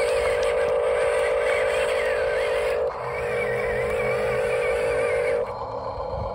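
Electric motors and gears of a scale RC construction vehicle whining with a steady high tone, breaking off briefly about three seconds in and stopping about five and a half seconds in.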